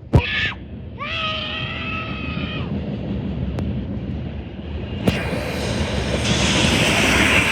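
Freight train passing close by: its horn sounds a steady chord for under two seconds about a second in, over the rumble of the train, which grows louder with rising wheel-and-rail hiss from about five seconds in.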